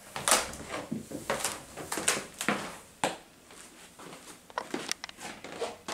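Irregular soft knocks and rustles from movement on a staircase and from handling the phone, about ten brief sounds spread through the clip.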